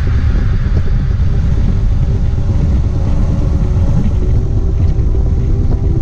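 Motorcycle engine running steadily while riding, under heavy wind rumble on the microphone.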